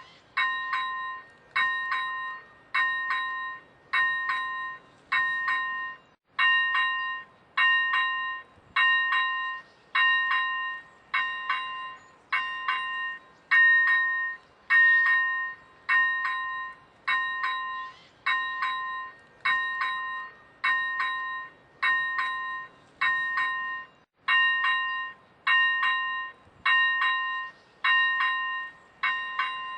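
Czech railroad level-crossing warning bell ringing continuously, about one ring a second, each ring a quick double strike that dies away before the next.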